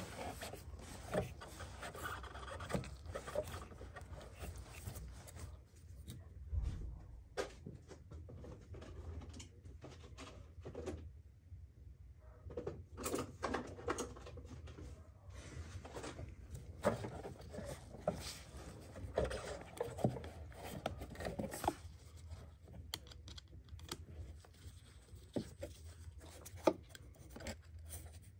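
Hand-work sounds in a car's engine bay: cloth rags rustling and rubbing, with scattered small clicks and knocks of parts and tools being handled around the diesel fuel filter.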